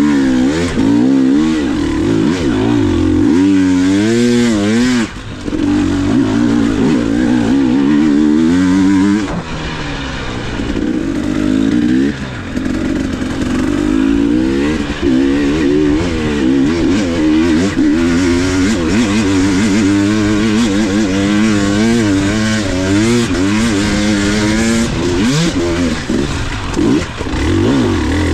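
KTM 300 XC two-stroke dirt bike engine being ridden hard off-road, its pitch rising and falling every second or so as the throttle is worked on and off. About nine seconds in it eases to a lower, quieter run for a few seconds before picking up again.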